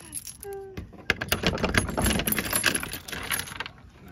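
Metal chain and padlock rattling and jangling as a wooden shed door is unlocked and opened: dense clattering that starts about a second in and lasts about three seconds.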